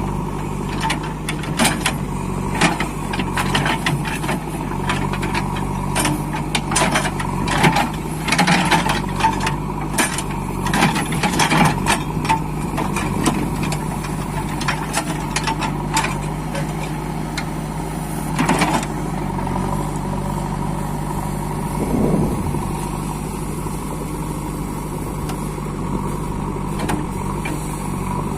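JCB 3DX backhoe loader's engine running steadily, with a constant whine over it and many short clanks and knocks from the machine working, thickest through the first half, with another loud one a little past halfway.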